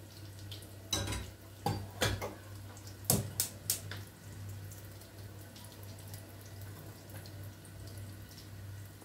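Kitchen work at a sink: about six sharp clinks and knocks of utensils or dishes in the first four seconds, then faint running water over a steady low hum.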